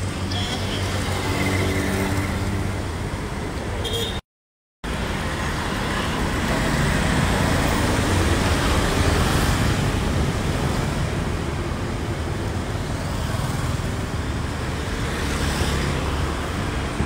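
Steady road traffic noise, a continuous rumble of passing vehicles, with an engine humming steadily in the first few seconds. The sound cuts out completely for about half a second around four seconds in.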